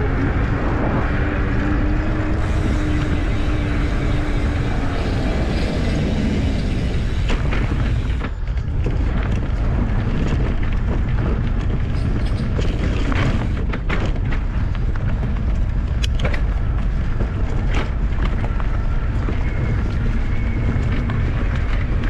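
Wind rushing over the microphone of a handlebar-mounted camera on a moving bicycle, with a low hum from the tyre on asphalt. About eight seconds in, the bike slows onto a rough dirt forest track and the noise turns to rattles and knocks from the bumpy ground.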